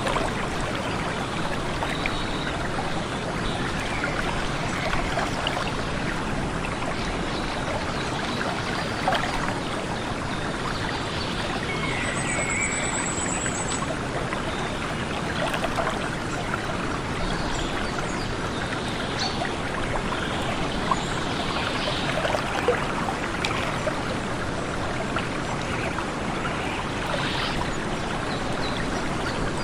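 Stream water flowing steadily, with a faint bird call or two about twelve seconds in.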